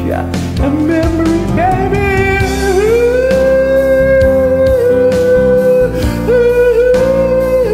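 A ballad's backing track with a voice singing a wordless melody: a few rising notes, then long held notes, with a short break about six seconds in before the next held note.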